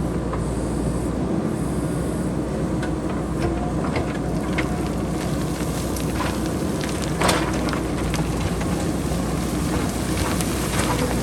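JCB backhoe loader's diesel engine running steadily while rocks and pebbles clatter down the hillside in scattered knocks, the loudest about seven seconds in.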